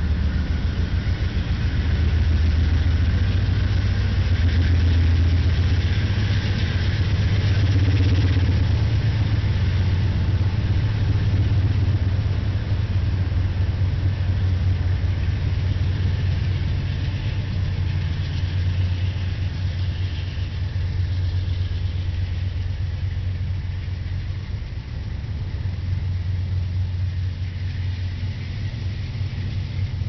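Diesel engines of Union Pacific freight locomotives running as they pass slowly close by: a steady low rumble.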